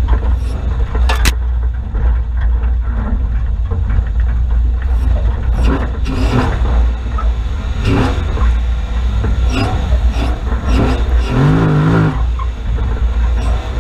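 Offroad 4WD being driven over a rough forest track: a steady low engine and driveline rumble with repeated knocks and clatters as the vehicle bounces over the uneven ground.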